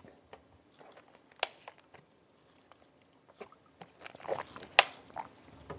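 A pause with faint room tone and a scattering of soft clicks and small handling noises, the sharpest about a second and a half in and just before five seconds in.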